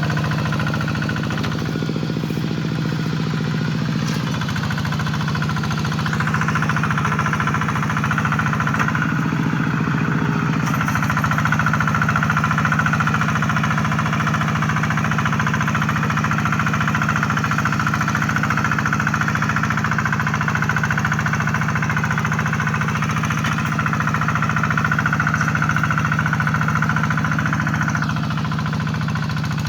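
Two-wheel hand tractor's single-cylinder engine running steadily under plowing load in a rice paddy. A harsher, brighter clatter joins from about six seconds in and drops away near the end.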